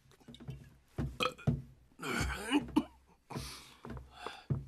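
A drunk man belching, with a few knocks and thuds around it.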